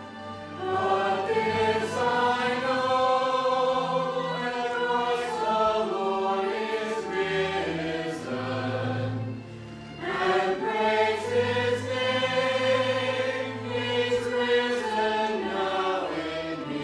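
Small mixed choir of men and women singing a gospel hymn in harmony, over steady low accompanying notes. Two long phrases with a short pause for breath about ten seconds in.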